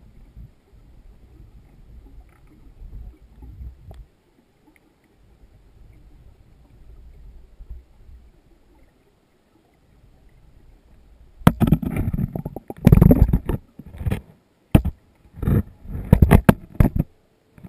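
Muffled underwater sound picked up through a GoPro's sealed waterproof housing: a faint low rumble, then from about eleven seconds in a string of loud, irregular muffled thumps and rushes of water as the camera is moved.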